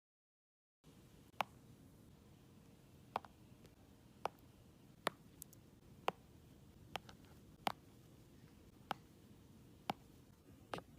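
Sparse, sharp, light taps or clicks, roughly one a second and sometimes in quick pairs, over quiet room tone, after a brief stretch of dead silence at the start.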